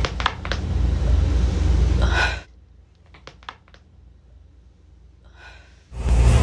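A person's back being cracked: after a stretch of low rumbling handling noise, a quick run of sharp cracks about three seconds in, followed by a short breathy gasp.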